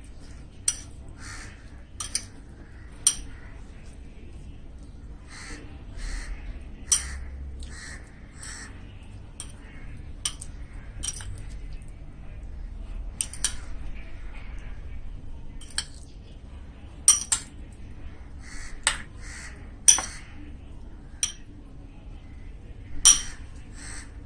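Metal spoon stirring corn kernels in a ceramic bowl: sharp, irregular clinks of the spoon against the bowl, the loudest in the second half, with softer scraping and rustling of the kernels between them.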